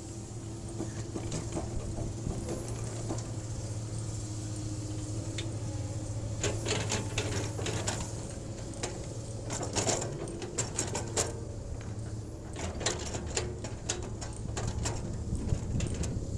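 Hydraulic excavator's diesel engine running steadily, with a run of sharp clanks and rattles from about six seconds in as the machine works.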